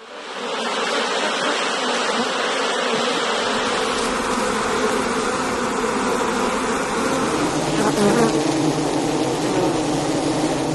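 Insects buzzing in a continuous, dense drone of several low tones at once, fading in over the first second, with a brief shift in pitch about eight seconds in.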